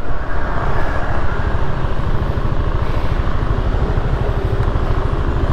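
Kymco Xciting S400i maxi-scooter's single-cylinder engine running at low speed, under a steady low rumble of wind and road noise on the rider's helmet-mounted camera.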